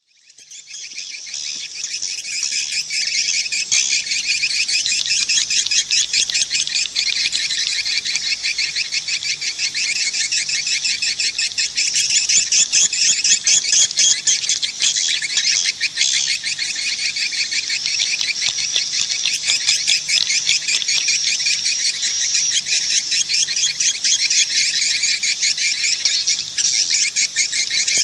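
Dense, unbroken twittering of many swiftlets, a fast stream of high chirps that fades in over the first two seconds and then holds steady. It is a swiftlet calling (lure) sound, the kind played at swiftlet nesting houses to attract the birds.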